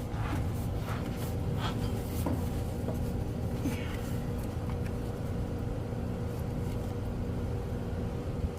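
A steady, low mechanical hum with a few light clicks and taps in the first couple of seconds.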